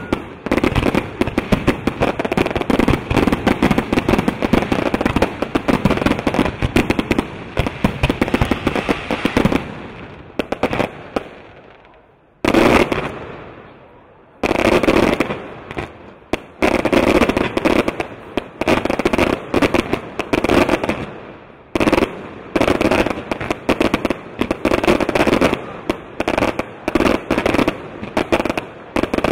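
Fireworks display: dense, rapid crackling and popping of bursting aerial shells and crackling stars. The barrage thins out about ten seconds in, a single sharp burst follows, then the rapid popping resumes a couple of seconds later.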